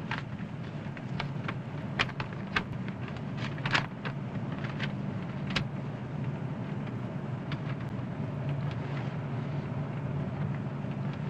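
Steady low hum of a moving car's engine and road noise heard from inside the cabin, with scattered crackles of paper in the first half as a letter is opened and unfolded.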